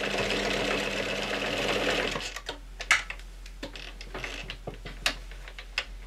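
Sewing machine stitching fast for about two seconds, then stopping, followed by scattered light clicks.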